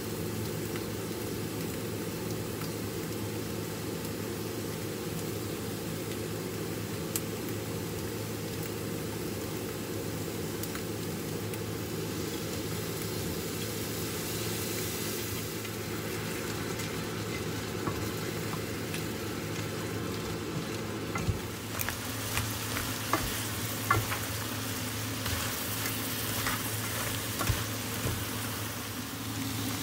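Crabs sizzling in black pepper sauce in a frying pan. In the second half a spatula knocks and scrapes against the pan in a run of sharp clicks as they are stirred.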